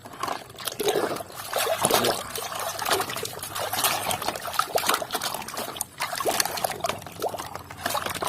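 Water splashing and trickling as muddy toy vehicles are rinsed by hand, with many small knocks and clicks of the toys against each other and the container.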